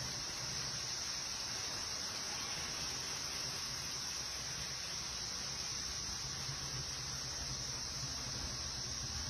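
Steady high-pitched hiss with a low, wavering hum underneath, unchanging throughout: background noise of a phone recording indoors.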